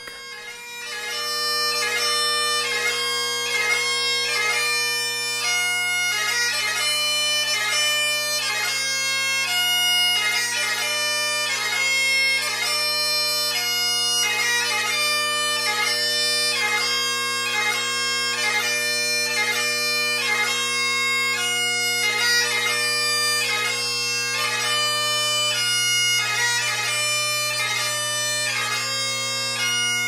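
Great Highland bagpipe playing piobaireachd: steady drones under the chanter, which runs through the taorluath a mach (doubled taorluath) variation in a quick, regular pattern of gracenoted movements. The drones hold a pleasant sound but are close to, not fully, locked in tune.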